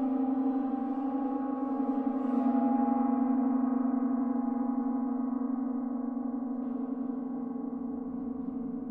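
Gong resonating in a long sustained shimmer, many steady overtones layered over a strong low hum that slowly pulses and swells a little a couple of seconds in.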